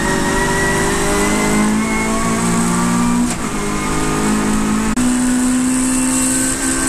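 Saloon race car engine heard from inside the cabin, accelerating hard, its pitch climbing. Two brief breaks, about three and five seconds in, fit upshifts.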